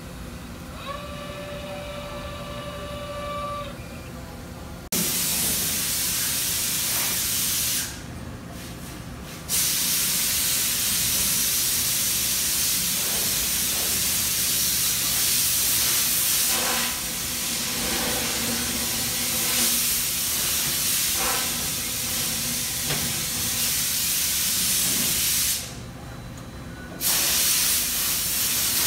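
A loud, steady hiss from the Okuma MCV-AII vertical machining center. It starts abruptly about five seconds in and drops out suddenly for a second or so twice, around eight seconds and near the end. Before the hiss starts, there is a short, steady whine.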